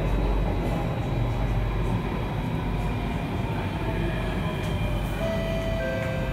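Alstom Metropolis C830 metro train running through a tunnel, heard from inside the car: a steady rumble of wheels and running gear. About two-thirds of the way in, a high electric whine from its traction motors joins the rumble.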